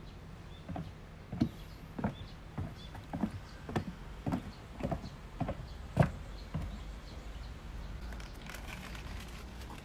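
Footsteps on paved ground, about two steps a second, stopping about six and a half seconds in.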